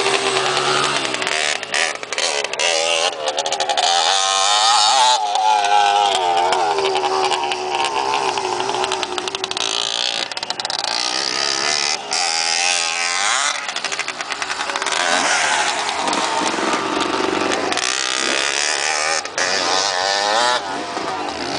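125 cc four-stroke dirt bike engines running under changing throttle, their pitch rising and falling again and again as they rev up and ease off.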